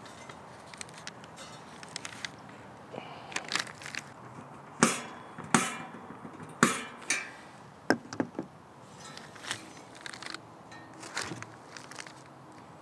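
Sharp metallic clanks and knocks from an aluminum truck grille and a screwdriver being handled on a steel workbench while a bow tie emblem is fastened to the grille. Four loud clanks come about a second apart near the middle, followed by lighter clicks.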